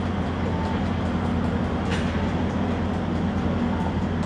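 A steady low rumble of outdoor background noise, with a faint short click about two seconds in.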